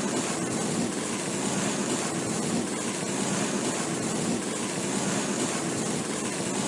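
Chalk being drawn across a surface: a steady, continuous dry scratching with no pauses between strokes.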